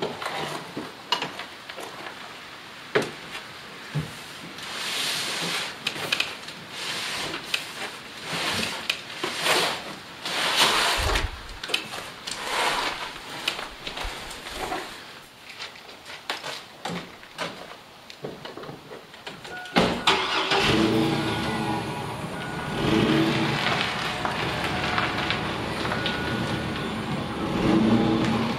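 A heavy cardboard box being dragged and bumped across a van's cargo floor: scattered knocks, thumps and scraping, with footsteps on gravel. About twenty seconds in, the sound changes abruptly to a steady mechanical running with a low hum.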